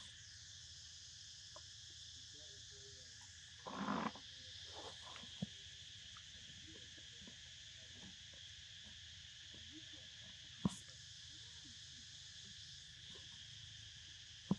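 Steady high chorus of insects droning in the background, with a short louder sound about four seconds in and a single sharp click a little after ten seconds.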